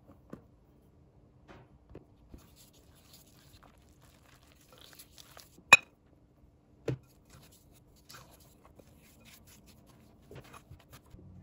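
Faint stirring and scraping of flour and water in a glass mixing bowl, with scattered soft taps. About halfway through comes a single sharp clink against the glass bowl, then a duller knock about a second later, over a faint steady hum.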